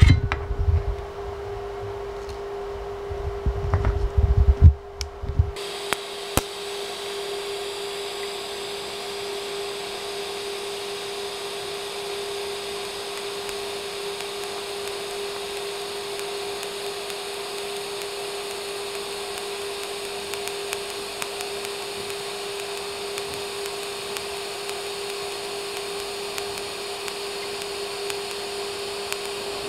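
TIG welding arc burning steadily: an even hiss with a constant hum through it. It begins about five seconds in, after some low thumps.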